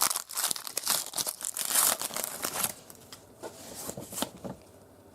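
Trading-card packaging being torn open and crinkled by hand: a run of crackly tearing for about two and a half seconds, then quieter rustling.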